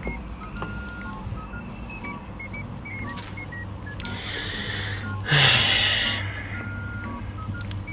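Background music: a light melody of short, plinking single notes. About five seconds in, a burst of noise lasts about a second and is louder than the music.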